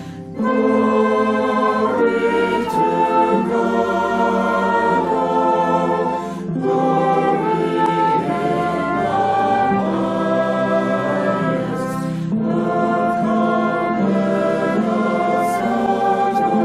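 Choir singing a Christmas hymn in long held phrases, with brief breaks between phrases about every six seconds.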